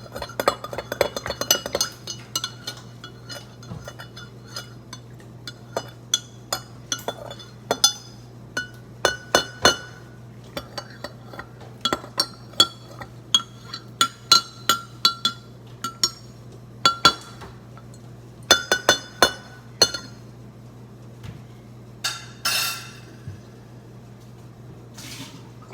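Metal spoon clinking against the inside of a cup while stirring coffee: many sharp, ringing clinks in irregular runs, over a faint steady low hum. A short scrape comes about 22 seconds in.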